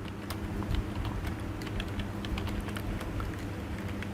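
Typing on a computer keyboard: irregular quick keystroke clicks over a steady low hum.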